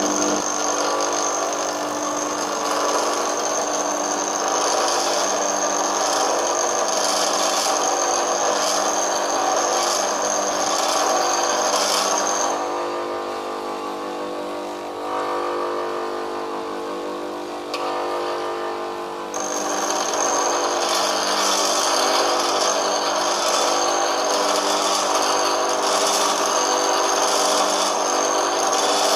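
Grinder running while an HSS lathe tool bit is pressed against the wheel: a steady grinding hiss over the motor's hum. About halfway through, the bit is lifted off for several seconds and only the motor hum remains, then grinding resumes.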